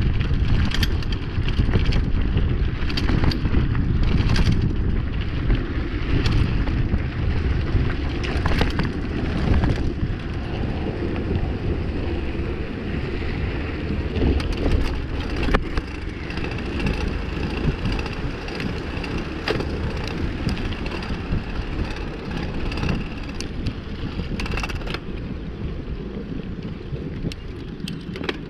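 Mountain bike rolling downhill over a rough dirt road, heard on a GoPro: steady wind and tyre rumble with frequent sharp rattles and knocks as the bike jolts over the bumps. It grows quieter in the second half as the bike slows.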